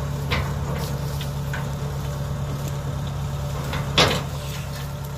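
Wooden loading ramps knocking a few times as they are set in place, with one loud knock about four seconds in, over an engine idling steadily.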